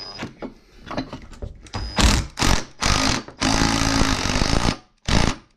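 Cordless impact driver hammering the 14 mm flywheel nut tight on a Poulan 3400 chainsaw, in about five short bursts starting some two seconds in. A few light clicks of handling come before.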